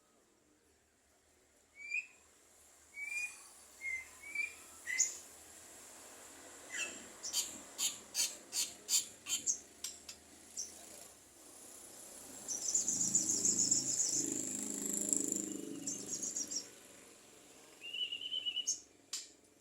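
Javan myna calling: a few short whistled chirps, then a quick run of sharp clicks, then a harsh rasping chatter lasting about four seconds, and another short whistle and clicks near the end.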